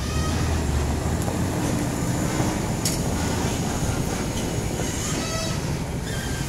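Hino 500 truck's diesel engine and the tyres of its heavily loaded sleeper trailer rolling slowly past close by: a loud, steady low rumble, heaviest in the first second as the cab goes by, with the trailer's rattle and rolling noise following.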